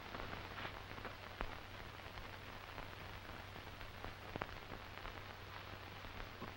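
Faint steady hiss and low hum of an old optical film soundtrack, with a few scattered clicks and crackles.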